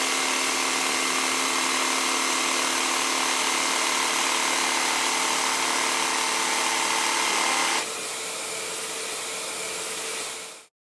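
Bosch electric jigsaw running and cutting through plywood, a steady motor noise with a blade rasp. About eight seconds in it drops suddenly to a quieter hum, which fades out near the end.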